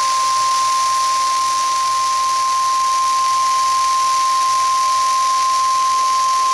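NOAA Weather Radio 1050 Hz warning alarm tone: a single steady, unbroken high tone over radio hiss. It is the alert signal that a tornado warning broadcast is about to follow.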